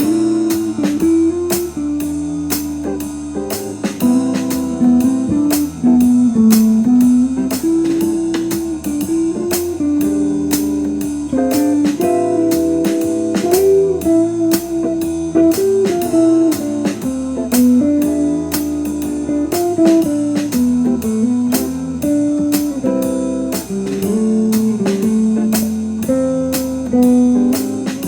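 Guitar playing blues-style music over a steady beat.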